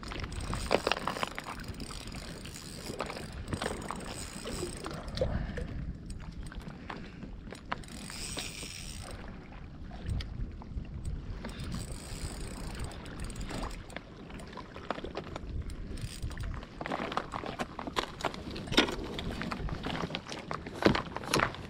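Daiwa Fuego 3000 LT spinning reel being cranked against a hooked bluefish, with wind on the microphone and water sloshing against rocks. In the last few seconds the splashes and knocks come more often as the fish is brought in to the rocks.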